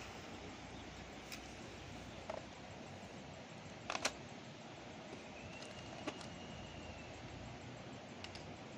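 Sparse sharp clicks and scratches over a steady outdoor background as matches are handled and struck on their box to light dry twigs and palm leaves for a wood fire; the loudest is a quick double click about four seconds in.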